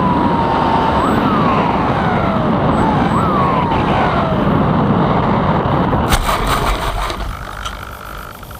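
Airflow rushing over a Bixler 3 RC plane in flight, with its electric motor whining. The whine falls in pitch and jumps back up twice as the throttle is worked. About six seconds in come a short burst of knocks and rustling, then the rushing noise dies away.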